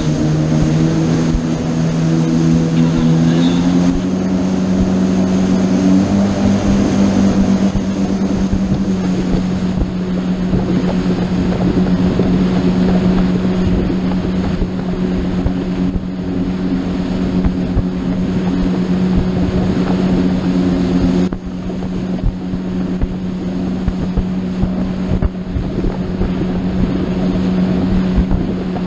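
Motorboat engine running under way, its pitch stepping up over the first six seconds and then holding steady, with wind on the microphone and water rushing past the hull.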